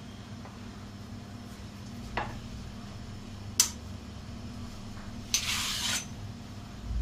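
Kitchen utensils handled and set down: a faint tick, then a sharp click, then a short scraping rustle near the end, over a steady low hum.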